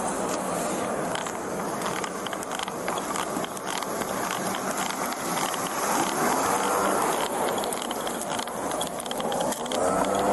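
Light clicking and rattling from a body-worn police camera and its wearer's gear as the wearer walks, over a steady hiss. A faint voice is heard about six seconds in and again near the end.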